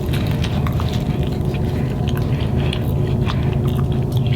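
Close-up wet chewing and biting of a California burrito (carne asada, cheese and french fries), with many small irregular mouth clicks and smacks over a steady low hum.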